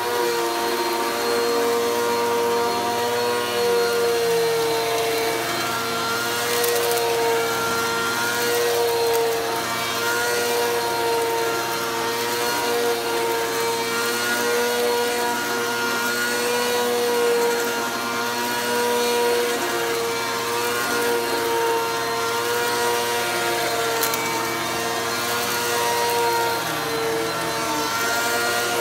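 Bagless upright vacuum cleaner running steadily as it is pushed over a shag rug: a high motor whine over the rush of air, the pitch wavering slightly with the strokes.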